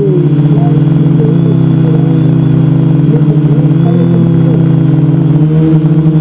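Loud, steady buzzing hum of a multicopter's electric motors and propellers, recorded by a camera mounted on the craft itself as it flies.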